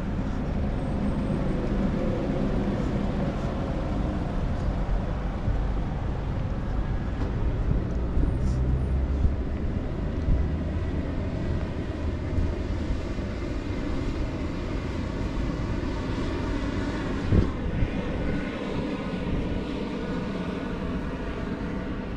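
Steady vehicle engine and road rumble, with a couple of brief knocks, the sharpest about seventeen seconds in.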